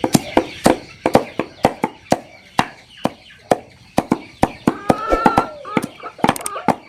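Rapid, irregular sharp taps or knocks, a few each second, with a short chicken call about five seconds in.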